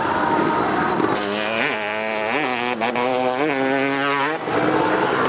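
Dirt bike engine running at a steady pitch, with three short throttle blips, from about a second in until it cuts off near the end.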